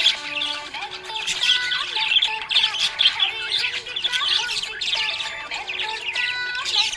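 Budgerigars chirping and warbling, a dense, rapid, unbroken stream of high chirps.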